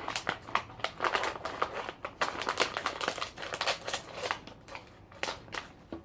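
Plastic snack bag crinkling and rustling as it is opened and handled: a dense run of irregular, sharp crackles.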